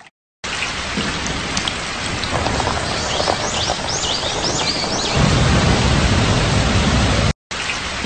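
Steady heavy rain falling, with a run of about six short high chirps about three seconds in. A low rumble swells under the rain about five seconds in.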